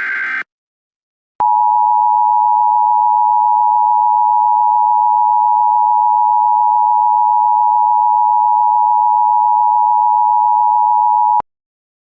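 The tail of an EAS SAME header data burst, a harsh buzzy screech that stops about half a second in. After a second of silence comes the Emergency Alert System attention signal, a steady two-tone beep (853 and 960 Hz together) held for about ten seconds and cut off sharply.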